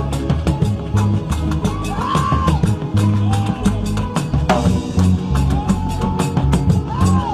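Music with a steady drum-kit beat and a moving bass line, with a few short high notes that slide up and back down.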